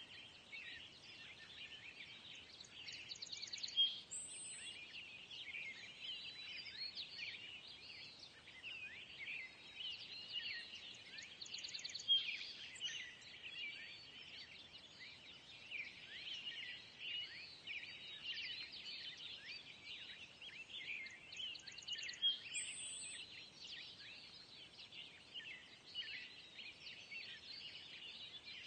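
Outdoor nature ambience of many birds chirping at once, with a few louder calls standing out now and then.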